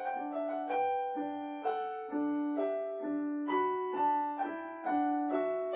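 Background music: a piano-like keyboard playing a simple melody, notes struck at a steady pace of about two a second, each fading after it is struck.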